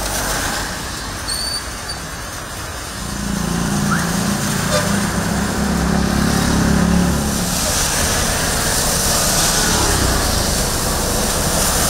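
Road traffic on a wet city street: a steady hiss throughout, with a vehicle engine humming past in the middle and the hiss growing brighter in the second half.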